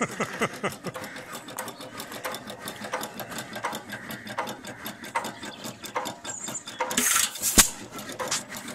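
Vintage hit-and-miss stationary engine coasting between firings, its valve gear and governor linkage clicking rapidly and evenly. Near the end it fires once with a short hiss and a sharp bang; it runs very slowly, missing for long stretches between firings.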